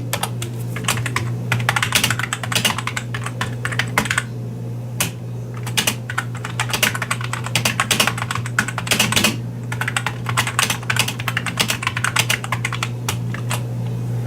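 Typing on an Apple Pro Keyboard (M7803) as a test of the restored keyboard: quick runs of key clicks with a brief pause about four seconds in, over a steady low hum.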